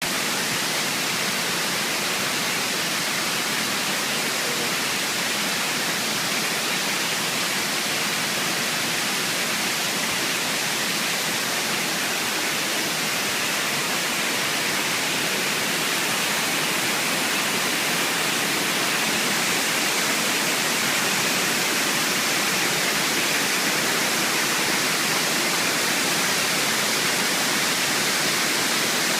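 Large waterfall's water crashing down in a steady, unbroken rush.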